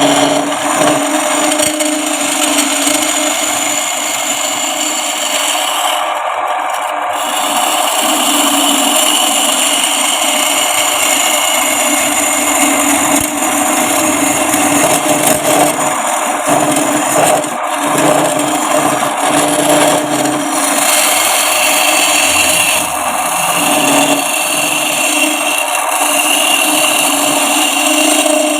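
Wood lathe running steadily while a tool scrapes and cuts the spinning wooden spoon blank.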